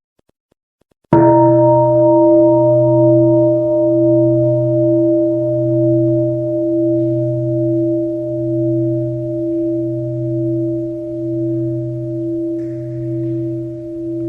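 Buddhist mindfulness bell struck once about a second in, then ringing on with a deep hum and several higher tones. Its loudness wavers slowly and evenly, about once a second, as it gradually fades.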